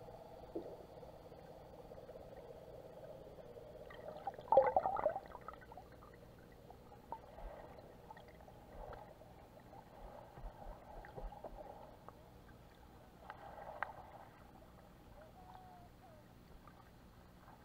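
Muffled underwater sound picked up by an action camera's microphone, with a faint steady hum and scattered small clicks. A louder burst of gurgling and crackling comes about four and a half seconds in, and a smaller one near fourteen seconds.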